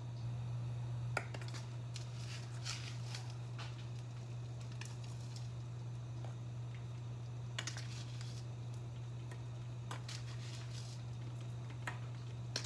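Faint clicks and rustles as a plastic jar of brown sugar is handled and sugar is shaken into sauce in a pan, over a steady low hum.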